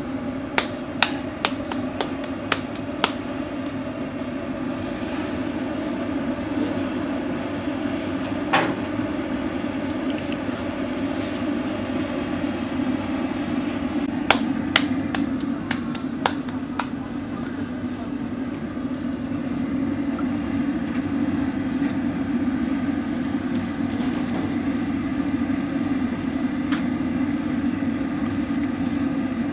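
Bhatura dough being slapped between the palms, a quick run of sharp pats at the start, then bhature frying in a large karahi of hot oil. A few sharp taps of a metal utensil against the pan come through a steady low rumble.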